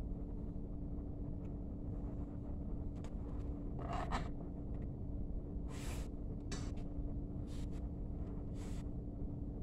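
Brief scrapes and rustles of hands handling a plastic candle container and its wick, about five short sounds starting about four seconds in, over a steady low hum.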